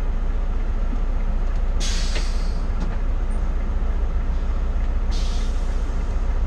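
Motor coach's diesel engine idling with a steady low rumble, heard from the driver's seat inside the cabin. Twice, about two seconds in and again about five seconds in, there is a short hiss of compressed air from the air-brake system.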